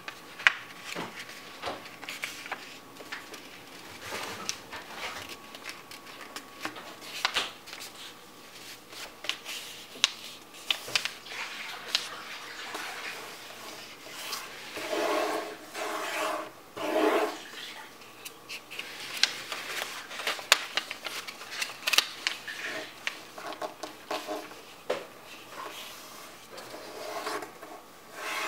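A sheet of paper being folded by hand on a tabletop: the paper rustles and slides, with many sharp, crisp taps as the creases are pressed down. There are a few longer rubbing sounds about halfway through.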